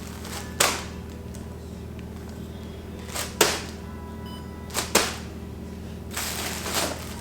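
Background music with several short, sharp whoosh sound effects, two of them close together in pairs, and a longer noisy swell near the end.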